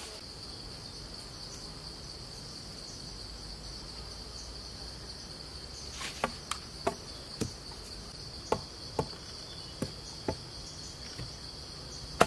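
Insects chirring in one steady high-pitched drone, joined about halfway through by a series of about eight sharp clicks and knocks, spaced about half a second apart, as a knife works at a chicken carcass.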